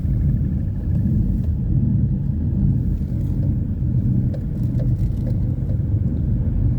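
Subaru driving with a steady low grinding rumble from its running gear, which the owner can't place between a worn wheel bearing, the differential or the transfer case.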